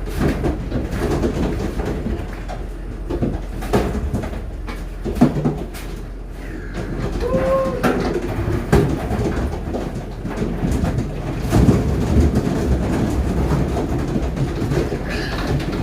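Pigs in a pen grunting amid repeated knocks and metal clatter, with one short pitched call about seven seconds in.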